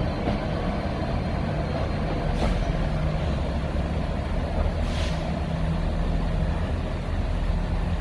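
Class 66 diesel locomotive's two-stroke EMD V12 engine running steadily as the locomotive pulls away, with two short hisses about two and a half and five seconds in.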